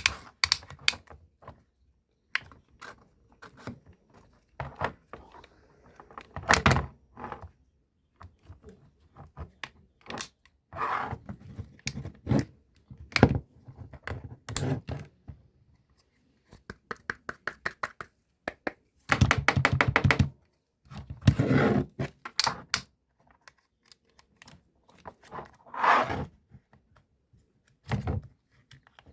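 Irregular clicks and knocks of hard objects being handled, with several short rattling bursts a second or so long past the middle.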